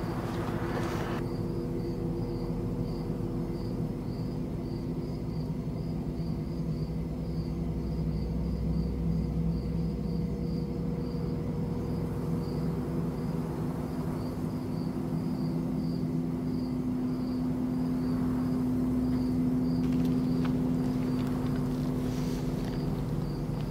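Crickets chirping steadily, about two chirps a second, over a steady low hum.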